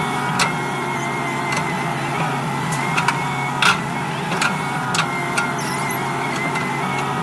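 Excavator running steadily under a continuous engine hum, with a thin high steady whine and a string of sharp knocks and clanks at irregular intervals.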